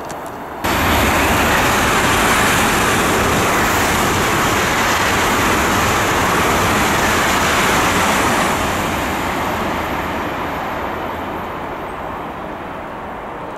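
High-speed passenger train passing at speed on the line beyond the fence: a loud rush of wheels and air. It starts abruptly about a second in, holds for several seconds, then fades away over the last few seconds.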